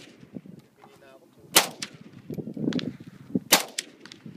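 Two single shots from an AK-47-pattern rifle, about two seconds apart.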